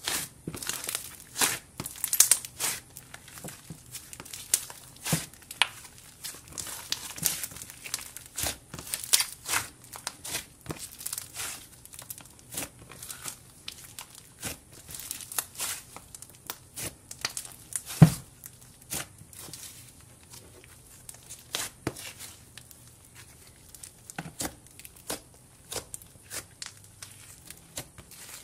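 Hands squeezing and poking a lump of glossy black slime, which gives off many quick, irregular crackling pops; one pop about two-thirds of the way through is louder than the rest.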